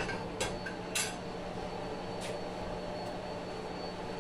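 A few light clinks and knocks of pans and a spatula being moved and set down on a gas stove's grates, the strongest about a second in, over a steady low hum.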